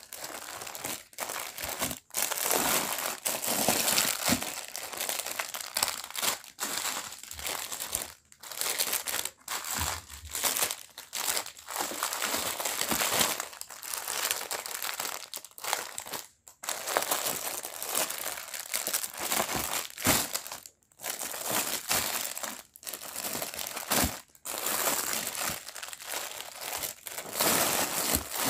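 Clear plastic packaging bags crinkling and rustling as bagged hair bundles are handled and shifted about, in uneven handfuls with many short pauses.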